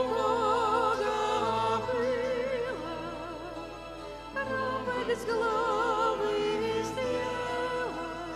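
A folk vocal ensemble singing a Polish Christmas carol with electric keyboard accompaniment, in long held notes with vibrato.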